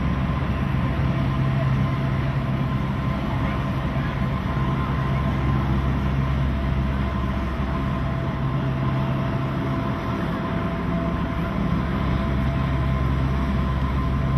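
Single-engine propeller aerobatic plane's engine and propeller making a steady drone as it flies aerobatic manoeuvres.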